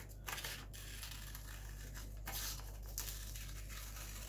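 Scissors cutting around a circle in white paper: a few short snips with the paper rustling as it is turned, over a steady low hum.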